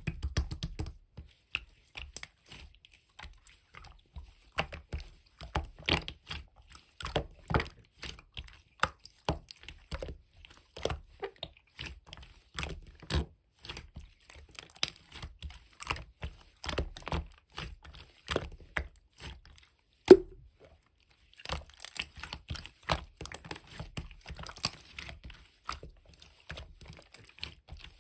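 Slime being squished, pressed and stretched by hand, making a stream of irregular sticky clicks and crackles. One much louder pop about twenty seconds in, after a brief pause.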